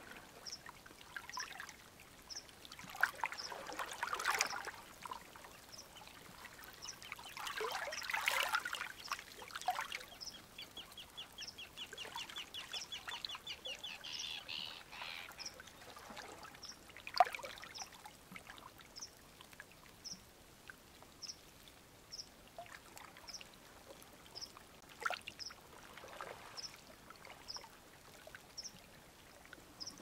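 Pond water splashing and trickling, with several louder splashes, as of koi churning at the surface. A bird repeats a short high chirp about once a second, and a rapid trill runs for a few seconds in the middle.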